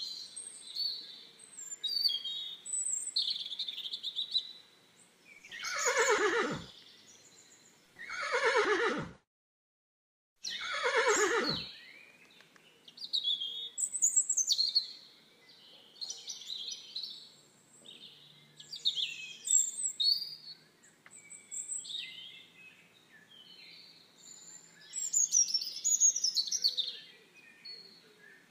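A horse whinnies three times in the first dozen seconds, each call falling in pitch, with a brief dead gap just before the third. After that, small birds sing and chirp.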